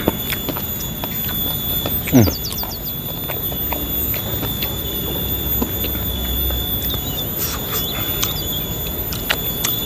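Close-up chewing of crunchy food, with scattered crisp crunches. About two seconds in comes one brief sound falling in pitch, the loudest moment. A steady thin high-pitched tone runs underneath.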